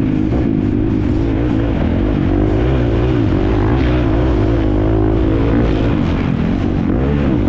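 Husqvarna FC350 four-stroke single-cylinder motocross engine running hard under racing throttle, its pitch rising and falling again and again as the throttle is worked on and off.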